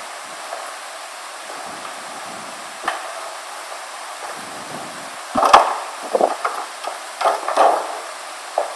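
A cluster of sharp knocks and clatters, loudest a little past halfway, over a steady hiss of room noise.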